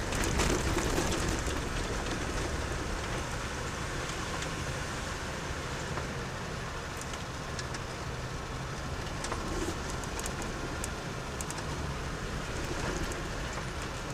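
Car driving: steady engine and road noise with a low rumble, and a few scattered light clicks.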